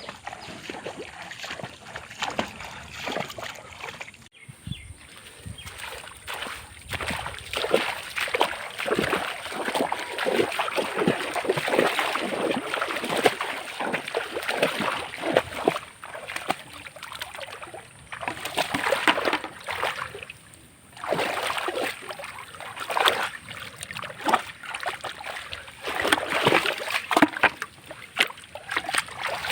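Shallow muddy water splashing and sloshing in irregular strokes, as hands grope and scoop through it for fish.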